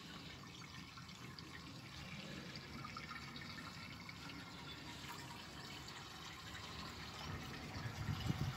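A steady trickle of water running into the aquarium tanks, with a low rumble near the end.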